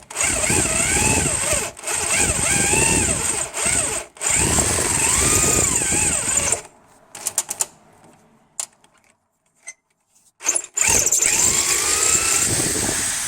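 Power drill boring out a broken, rusted-in steel bolt, the bit going blunt quickly. The motor runs in stretches broken by short trigger releases, its pitch wavering under load. It stops about six and a half seconds in, leaving a few light clicks, and runs again for the last couple of seconds.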